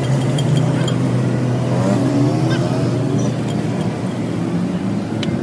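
A vehicle engine running at a steady speed, with a few faint sharp ticks.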